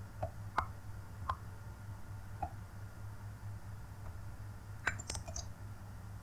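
Scattered clicks of a computer mouse and keyboard: a few single clicks, then a quick cluster of three or four about five seconds in, over a low steady hum.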